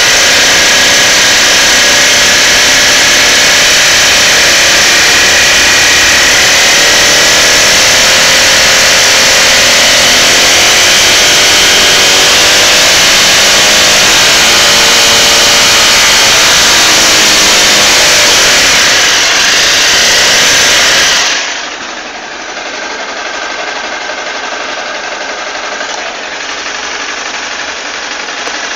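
Motorcycle engine being revved close up, loud, its pitch rising and falling, which the owner puts down to a shim problem. About two-thirds of the way through it drops back to a much quieter steady run.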